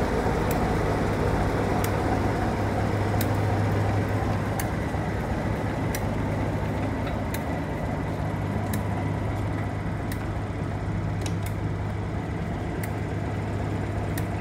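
Class 47 diesel locomotive's Sulzer V12 engine idling with a steady low hum, with a faint click about every second and a half.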